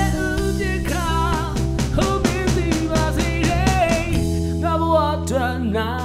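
A rock band playing a song: a voice singing over a steady drumbeat, with bass guitar underneath.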